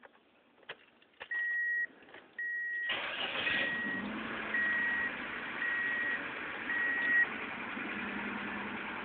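A 1998 Ford Escort ZX2's four-cylinder engine, fitted with a Borla exhaust, is started: it catches about three seconds in and settles into a steady idle. Over it, a dashboard warning chime beeps six times at about one-second intervals. A few faint clicks come just before the start.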